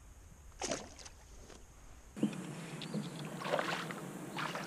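Water splashing and sloshing against a plastic fishing kayak, with a short splash about a second in and louder, rougher splashing from about two seconds in.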